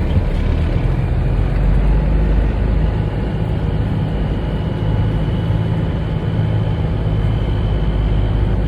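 Semi truck's diesel engine running steadily, with a faint steady high whine joining about three seconds in.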